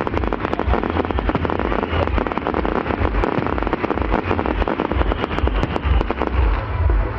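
Fireworks crackling: a dense, rapid run of many small pops and crackles that thins out near the end, over a low rumble.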